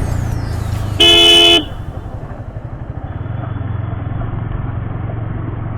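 A vehicle horn sounds once, briefly, about a second in, the loudest sound, over the steady low hum of an engine running.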